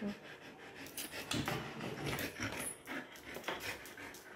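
Golden retriever playing with a long wooden stick in its mouth: irregular clicks, taps and scrapes.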